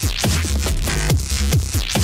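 Electronic dance track, a dubstep remix, with a heavy sustained bass and a pitch-dropping kick drum about twice a second.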